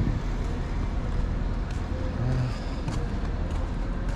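Steady city street noise with a low traffic rumble.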